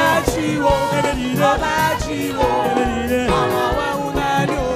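Gospel music: a singing voice over a band with a steady drum beat.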